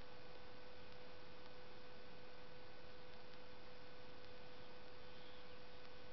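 Steady electrical hum with one constant tone over an even hiss, at an unchanging level; the tone cuts off shortly before the end.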